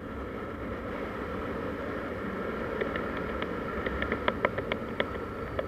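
Motor scooter being ridden at speed: steady wind rush and engine and tyre noise, with a run of short sharp clicks in the second half.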